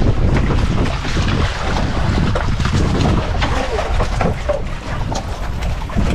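Wind buffeting the microphone over choppy sea water lapping and splashing against an outrigger fishing boat, a steady rough rush with irregular gusts.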